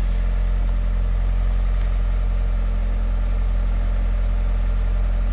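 Honda Prelude 2.0-litre 16-valve four-cylinder engine idling steadily.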